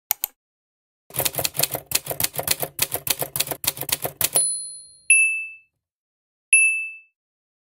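Typewriter sound effect: a quick double click, then a fast run of key clacks for about three seconds ending in the carriage-return bell, followed by two short, bright dings about a second and a half apart.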